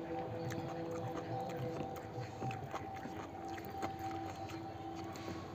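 Fingers mixing rice on a plate while eating by hand, with small scattered clicks and light chewing. A few steady held tones hum underneath throughout.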